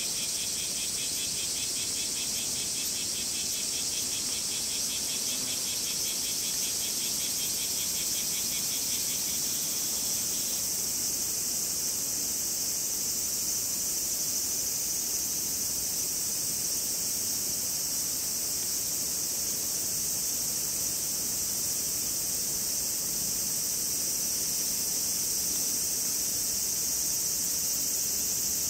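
Cicadas singing in a steady, high-pitched chorus. A second, lower-pitched call pulses rapidly alongside it and stops abruptly about ten seconds in.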